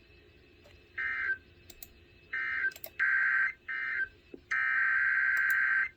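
Emergency Alert System digital data bursts (SAME/AFSK tones): a string of short, harsh warbling bursts, then a longer one near the end. These are the coded signals that close one alert and open the next. A few sharp clicks sound between them.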